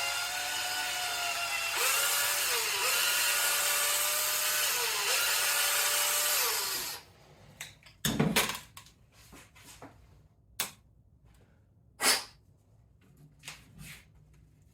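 Power drill running as the bit bores through an RC truck's A-arm hinge-pin hole, enlarging it for a thicker hinge pin. The motor pitch dips briefly twice as the bit bites, then the drill stops about seven seconds in, followed by a few sharp knocks and clicks.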